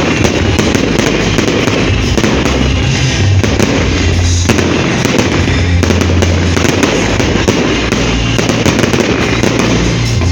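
Fireworks display: aerial shells bursting in a dense, continuous barrage of bangs and crackling.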